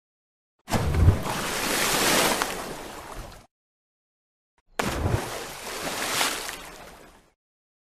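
Ocean waves breaking, twice: each wave comes in suddenly with a low rumble and a hiss of surf, then fades over about two and a half seconds. The surf is cut to complete silence between the waves.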